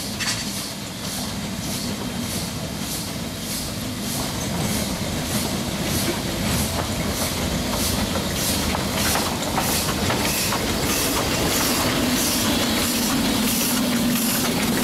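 Chinese C2-class narrow-gauge steam locomotive working a passenger train at low speed: steady exhaust chuffs about twice a second with steam hiss over the rumble of the train, growing louder as it approaches.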